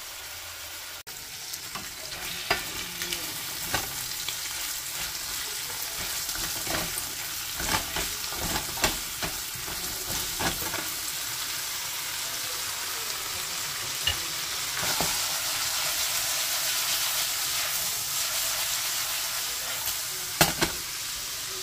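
Cubed beef sizzling as it sears in a frying pan, with a steady hiss of hot oil. A utensil stirs the meat and clicks and knocks against the pan now and then, with a few louder knocks near the end.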